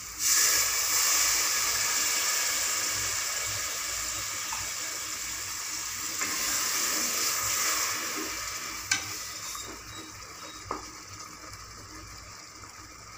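Ginger-garlic water poured into masala frying in hot oil in an aluminium pot sets off a loud sizzle that fades steadily, while a wooden spatula stirs the curry.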